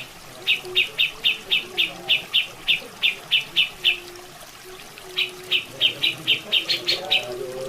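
Grey-cheeked bulbul (cucak jenggot) calling in rapid runs of sharp, repeated notes, about four a second, with a break of about a second in the middle. A steady sound of running water lies underneath.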